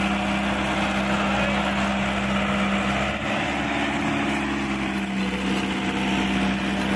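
Ace 450 tractor's diesel engine running steadily at about 2100 rpm under heavy load, driving a Shaktiman rotavator whose blades churn hard, uncultivated ground.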